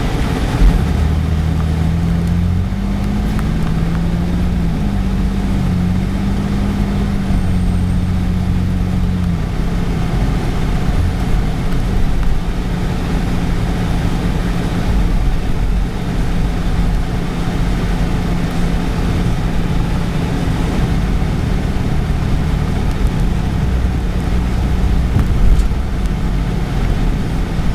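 A car's engine running with steady road noise, heard from inside the car. The engine hum shifts up and down in pitch a few times during the first several seconds, then settles into an even drone.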